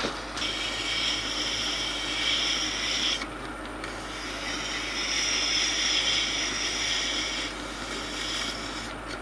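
A hand tool rubbing against a former turning in the lathe, shaping its curved profile, in two passes of about three seconds each with a short break between them.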